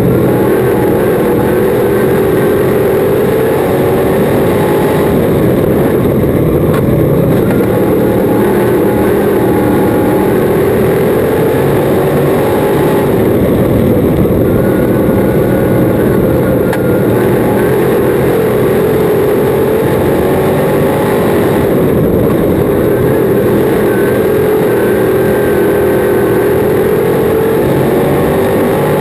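Crate modified race car's V8 crate engine heard from inside the cockpit, running hard at racing speed. Its pitch rises and falls in a repeating cycle every several seconds as the driver accelerates and lifts around the oval.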